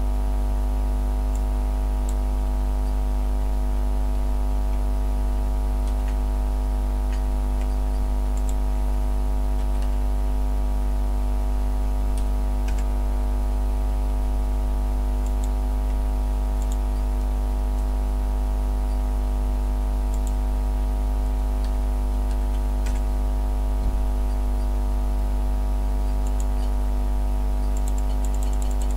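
A large engine running steadily at an unchanging speed, a constant drone of many even tones over a deep rumble. Faint clicks are scattered through it, and a fast light ticking starts near the end.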